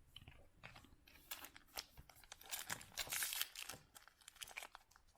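Baseball trading cards being handled by hand: faint crinkling and scraping of card stock and pack wrapper, in irregular clusters of short ticks.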